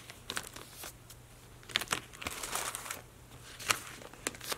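Faint rustling and crinkling of Bible pages being leafed through, with a few soft clicks scattered across the pause.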